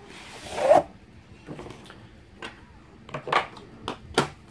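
Hardcover book sliding out against the cardboard of a box set: a scraping rasp ending in a short rising squeak about half a second in, followed by several light taps and handling sounds on the book and box.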